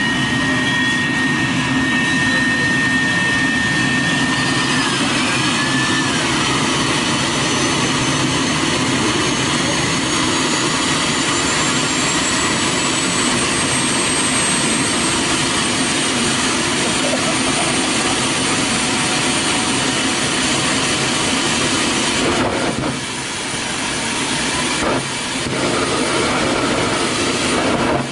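Small homemade turbojet engine run up to full power on a test stand: a loud, steady jet roar with a turbine whine that rises in pitch over the first dozen seconds or so, then holds high. The roar dips briefly twice near the end.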